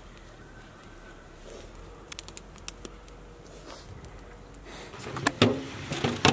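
Wood fire burning under a large cooking pot: a low steady background with a few faint crackling pops. Near the end come several loud sharp knocks.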